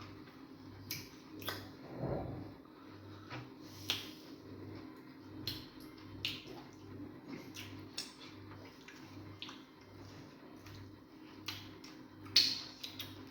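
Mukbang eating sounds: wet smacks and clicks of mouths chewing fufu with egusi soup, irregular and close, the loudest smack near the end, over a faint steady hum.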